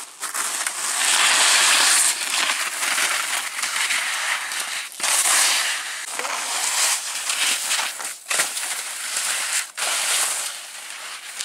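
Skis sliding and scraping over snow through a run of turns: a loud scraping hiss that swells and fades several times, with scattered sharp clicks.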